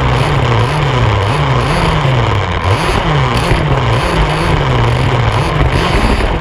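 Two-stroke petrol engine of an HPI Baja 5B large-scale RC buggy, revved up and down over and over, its pitch rising and falling about once a second, over a constant rush of noise.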